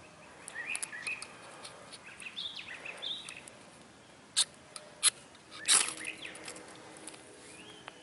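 A small ferro rod (Tortoise Gear Firefly) scraped with the spine of a Swiss Army knife's saw blade: three sharp scrapes about half a second apart in the second half, the last one the longest and loudest, throwing sparks that light a Tinder-Quik tab. Birds chirp faintly in the first half.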